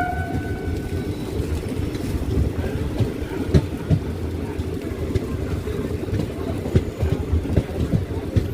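The shrill horn of a WAP-7 electric locomotive cuts off just after the start, then a train runs along the track with a steady low rumble and irregular knocks from the wheels, with some wind noise.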